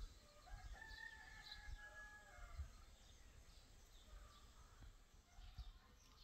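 A rooster crowing once, faint, one long held call about half a second in, with small birds chirping faintly.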